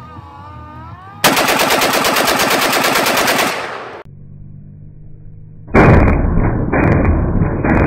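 Norinco AK-47 in 7.62x39 bump-fired with a Slidefire stock, letting off a fast, evenly spaced string of shots about a second in that lasts roughly two seconds. After a short pause, more rapid fire comes in a series of short bursts with brief breaks between them, sounding duller.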